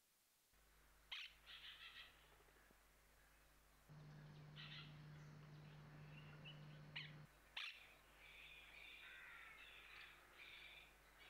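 Crows cawing faintly in short repeated calls, with smaller birds chirping toward the end, over a steady low hum.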